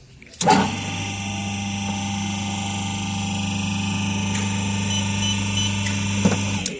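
Hydraulic hose crimping machine's electric pump motor switching on with a click, running with a steady hum, and cutting off near the end. Three short electronic beeps sound about five seconds in.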